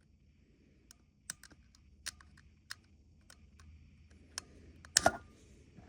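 Irregular light clicks and taps of hands working wires into the small screw terminals of a fire alarm device, with a louder clatter about five seconds in.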